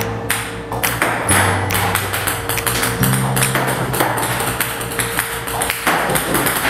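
Background music with held low notes, over a rapid, irregular clatter of table-tennis balls bouncing on the table.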